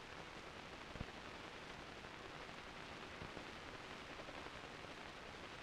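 Faint steady hiss of an old film soundtrack, with a single soft click about a second in.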